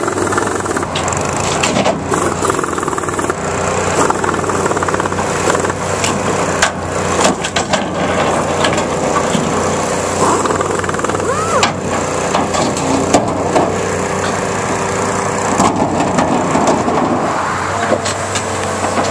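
Cat hydraulic excavator running steadily while its Okada demolition shear grips and breaks apart steel guardrail and wooden posts, with many scattered sharp cracks, metal clanks and creaks. A steady whine runs through most of the middle.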